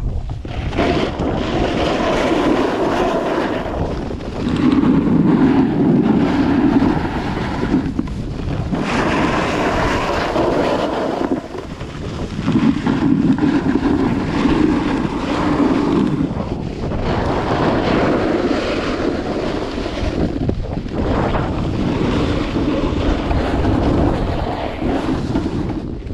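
Wind buffeting the microphone during a fast downhill run, with edges scraping and hissing over snow in swells that rise and fall every few seconds.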